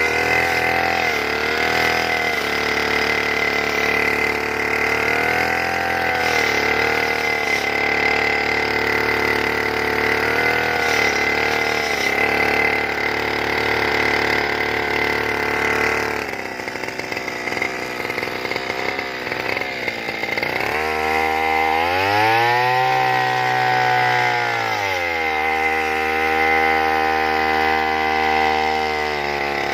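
Petrol brush cutter engine running at high speed, its pitch dipping and recovering again and again as it cuts cogon grass. About two-thirds through it drops to a rough low running, then revs up sharply, falls back and settles at a steady speed.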